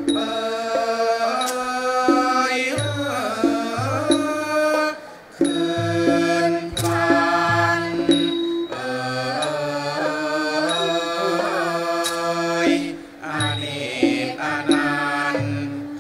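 Male chorus singing a slow Thai classical song in unison, accompanied by a Thai classical ensemble with a ranat ek xylophone, drum and regular small metallic strikes.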